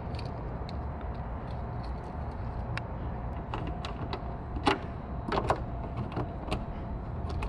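Light plastic and metal clicks and taps of a car trunk latch assembly being handled and fitted against the underside of the trunk lid, with a sharper click about halfway through and a few more just after, over a steady low background hum.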